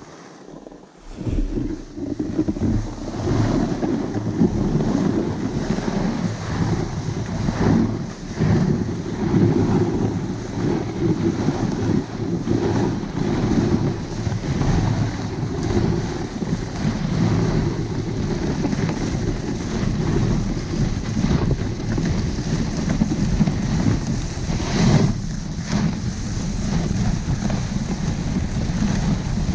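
Wind buffeting the microphone and the sled's skis rushing over packed snow on a fast downhill run: a steady, loud rushing noise that starts about a second and a half in.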